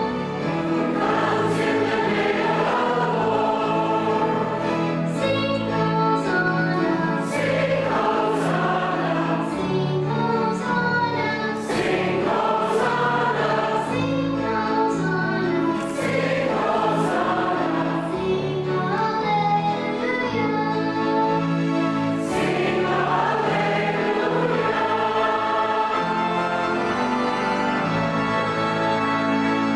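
A young girl singing a song into a handheld microphone over instrumental accompaniment.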